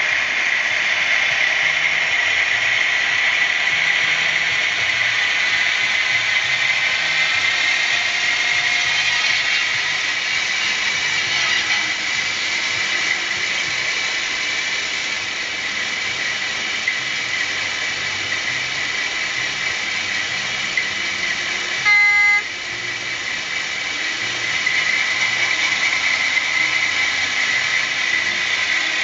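Sound decoder of a Piko DF7C model diesel locomotive playing a steady diesel engine running sound, with one short horn blast about 22 seconds in.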